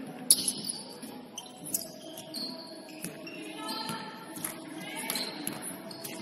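Basketball game in a gym: a ball bouncing on the hardwood court, with short high squeaks and sharp knocks over the hall's background noise.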